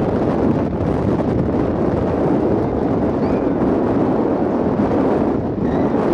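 Wind buffeting the microphone, a steady rumbling noise.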